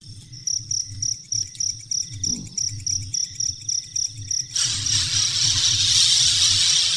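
Insects chirping in a steady rhythm, about three to four high chirps a second, joined a little past halfway by a loud continuous buzz.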